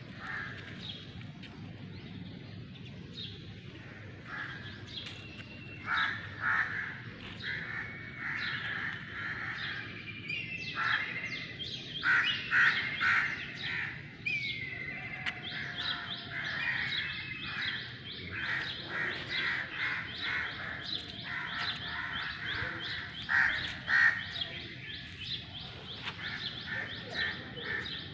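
Birds calling outdoors: repeated harsh crow caws mixed with rapid chirping of small birds, which gets busier from about halfway through.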